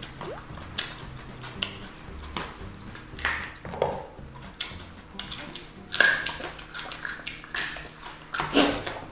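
Eating sounds of crispy fried chicken: irregular crunches, crackles and wet chewing smacks, the loudest a few seconds apart, over faint background music.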